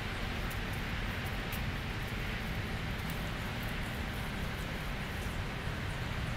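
Steady outdoor background noise with a low rumble, no distinct events.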